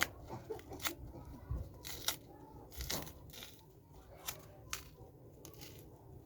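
Dry multani mitti (fuller's earth clay) being bitten and chewed close to the microphone: a string of irregular sharp crunches, about one or two a second.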